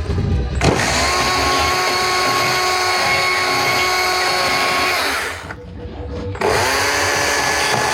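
A power tool running at a steady full speed for about four and a half seconds, stopping, then starting up again about a second later.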